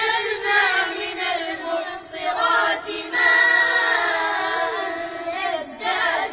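Children's voices chanting a Quran verse together in melodic tajweed style, repeating the verse that the adult reciter has just recited.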